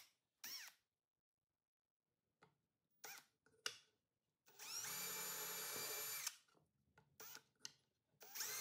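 Hand-held power drill spinning up and running steadily for about a second and a half while boring a screw hole through a wooden drawer front. A few light clicks come before and after, and the drill starts again near the end.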